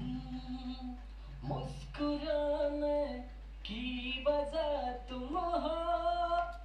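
A recorded solo singing voice played back from the recording software, with a ping-pong delay effect inserted on the track. It sings in about three phrases with held and sliding notes, then cuts off suddenly near the end as playback stops.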